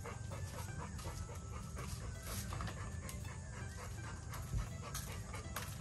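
Labrador retriever puppy panting, with scattered light clicks over a steady low hum.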